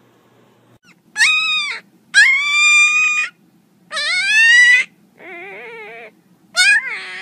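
Young puppy whining: five high-pitched cries in a row, each under about a second, the fourth lower, quieter and wavering.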